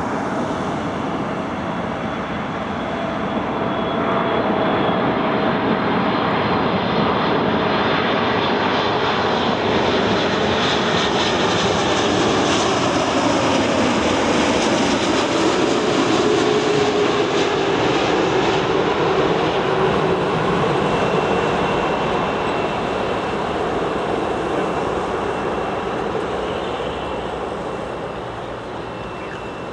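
Boeing 747-8F freighter's four GEnx-2B jet engines as it comes in to land, the noise building over the first few seconds, loudest mid-way with a whine falling in pitch as it passes, then fading.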